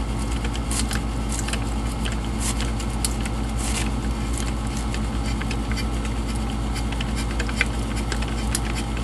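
Hand-turned thread tap cutting threads into a metal oven door handle: irregular small clicks and scrapes as the tap bites and turns, over a steady low hum.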